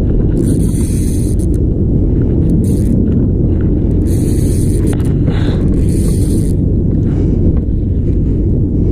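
Steady low rumble aboard a small fishing boat at sea, with several short bursts of hiss over it.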